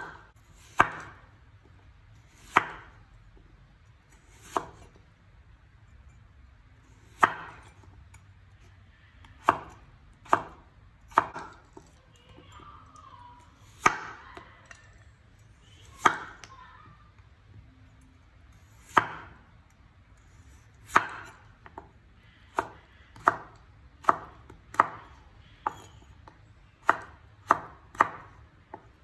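Cleaver slicing through a peeled raw potato and knocking on a wooden cutting board, one sharp chop per slice. The chops come slowly and unevenly at first, then quicker toward the end.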